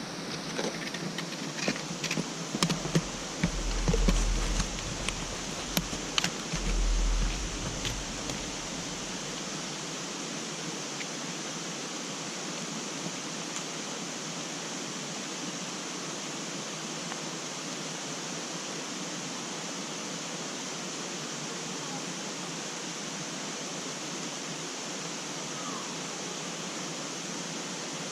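Steady rush of a mountain creek. In the first several seconds there are scattered clicks and a few low bumps; after that the water sound runs on evenly.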